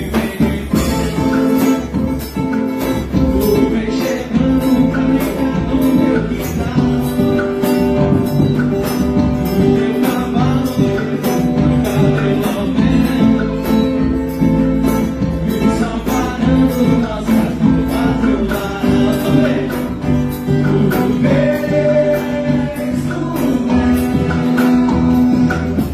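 A forró band playing, with sustained held notes over a steady beat of percussion strikes about twice a second.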